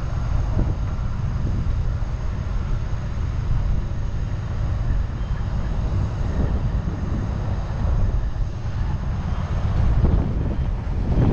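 Truck engine running with a steady low rumble as the truck drives slowly.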